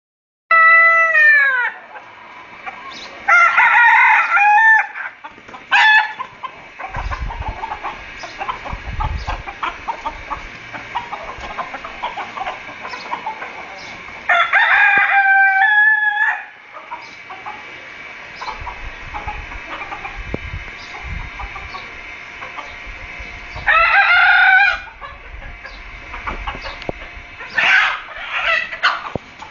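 Chickens calling: five loud drawn-out calls, each a second or two long, the first falling in pitch, with quieter clucking and low rumbling noise between them.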